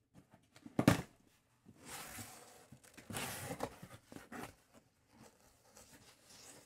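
Packaging rustling and shuffling as a hand digs into a large cardboard shipping box, with a few soft knocks, and a short vocal sound about a second in.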